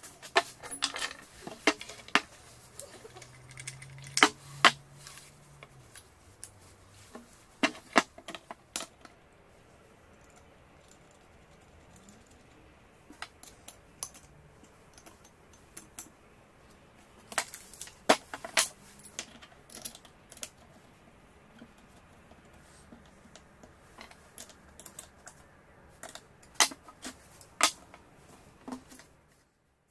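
Metal clinks and knocks from handling an angle grinder, its guard, a steel bracket and a wrench on a wooden workbench: scattered sharp clicks in short clusters, with quiet stretches between.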